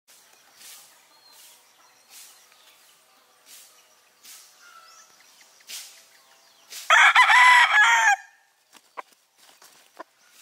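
Gilmore Hatch gamefowl broodstag, a young gamecock, crowing once: a short crow of a little over a second, starting about seven seconds in. A faint hiss pulses about once a second before the crow, and two short faint chirps follow it.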